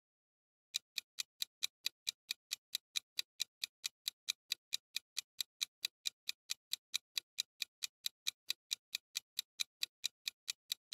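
Countdown-timer sound effect: a steady clock-like ticking, about four to five ticks a second, starting about a second in.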